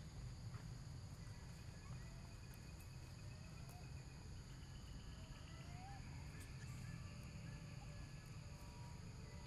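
Faint, soft squeaks and short rising calls from young macaque monkeys, scattered over a steady outdoor hiss.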